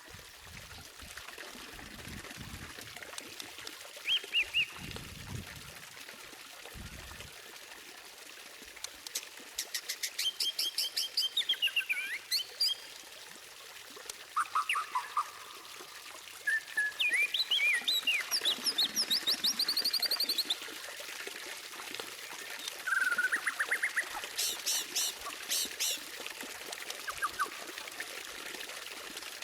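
White-rumped shama (murai batu) singing a varied song of whistled notes, gliding phrases and fast liquid trills, with two bursts of rapid, very high repeated notes, the 'tembakan' of a tutor recording. A few faint low thuds sound in the first few seconds.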